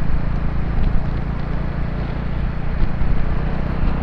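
Motorcycle engine running steadily as the bike rides off slowly, with wind rushing over the microphone.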